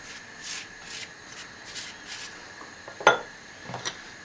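Pastry brush swishing across a gözleme flatbread on a hot griddle, spreading olive oil in about four strokes. About three seconds in comes a sharp clink, with a lighter knock shortly after.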